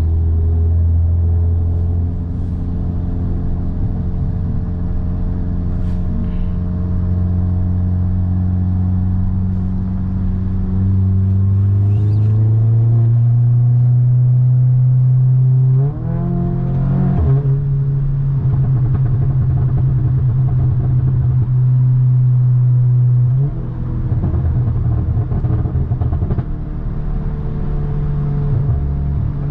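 2017 Audi S3's turbocharged four-cylinder engine and exhaust under way: a steady drone that climbs gradually in pitch from about ten seconds in, jumps up sharply around sixteen seconds, holds at the higher note, then drops about twenty-three seconds in to a rougher, uneven note.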